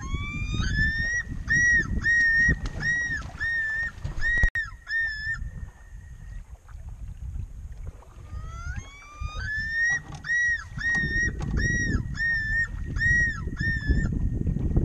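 Common loon yodelling twice: each call opens with a rising note, then runs into about seven quick, evenly repeated notes at one pitch. Wind and water rumble underneath.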